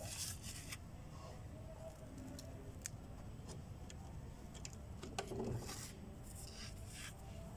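Faint rustling and small crunchy clicks of potting soil and leaves as fingers press the soil down around a freshly potted cutting, in short bursts near the start, about five seconds in and again near the end.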